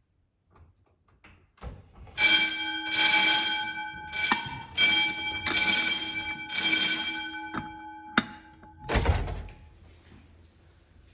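Wheelock motor fire alarm bell ringing in pulses for several seconds, starting about two seconds in and stopping about nine seconds in. A single heavy thump comes just as the ringing ends.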